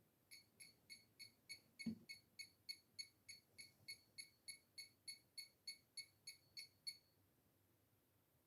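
Faint, rapid electronic beeping, about three short beeps a second, that stops abruptly about seven seconds in. A single low thump sounds about two seconds in.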